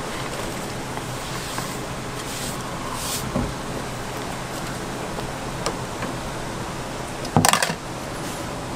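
Steady hiss and low hum of a street-food stall's cooking station, with a few light utensil knocks and a short burst of clattering near the end.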